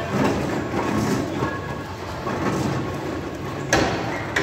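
Steam traction engine running and moving slowly, with a busy, echoing mechanical noise and one sharp, loud clank about three seconds in.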